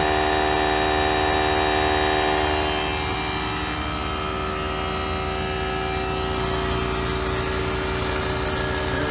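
Two electric air compressors running together while filling their tanks: a 2-gallon HDX pump with a steady hum drowns out a Campbell Hausfeld 8-gallon quiet compressor (model DC080500). The sound drops slightly in level about three seconds in.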